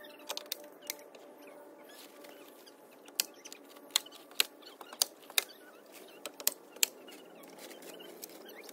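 Hand staple gun firing staples through a tarp into wooden pallet boards: a dozen or so sharp clacks at uneven intervals, bunched in the middle stretch.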